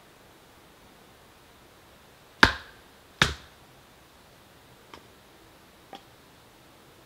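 Two sharp chopping strikes into wood, less than a second apart, then two faint clicks.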